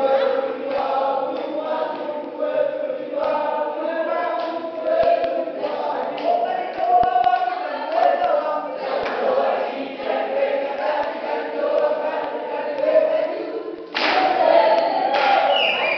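A group of people singing together without instruments, with hand claps and stamping feet keeping time. The singing gets louder about fourteen seconds in.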